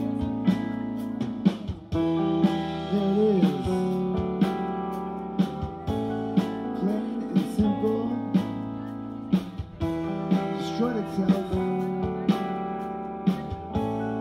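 Live rock band playing an instrumental passage: two electric guitars, bass guitar and a drum kit, with regular drum hits under sustained guitar notes. The music dips briefly and a new phrase starts about two seconds in.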